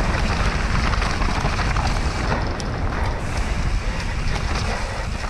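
Wind rushing over the microphone and the rumble of a Propain Tyee 29-inch enduro mountain bike's tyres on a dirt trail during a descent.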